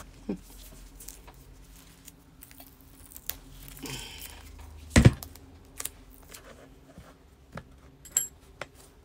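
Crafting handling noise: double-sided tape being pulled from its roll and laid down the middle of a strap strip, a short peeling rasp among small clicks and taps, with one sharp tap about five seconds in.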